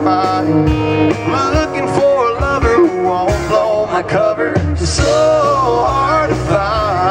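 Live country-rock band playing: a man singing over guitar, bass and drums.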